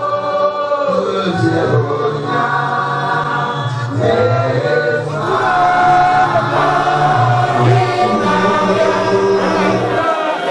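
A choir of voices singing together, with a steady low part underneath that stops near the end.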